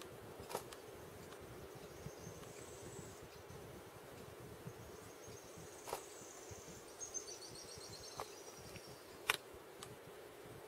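Faint outdoor ambience: a steady low hum with a few sharp clicks, and several short series of very high, thin chirps from small birds.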